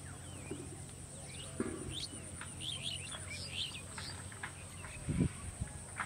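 Birds chirping, with many short, quick chirps and calls over a steady low background. A couple of low thumps about five seconds in.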